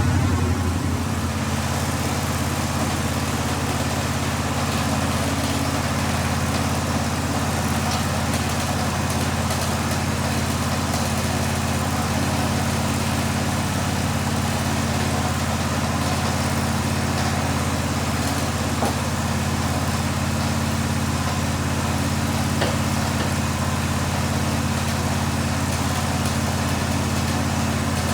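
An engine idling steadily after easing down from a higher speed about a second in.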